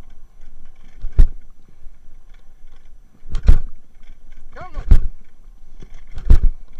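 A mountain bike rolling fast over a rough dirt track, with a steady rush of tyre and wind noise. About every second and a half a heavy thump jolts through it, and a short wavering squeal comes about four and a half seconds in.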